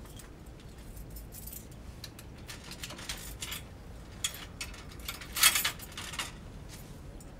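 Scattered light metallic clinks and rattles as a bicycle is handled at its rear wheel and frame, with the loudest cluster about five and a half seconds in.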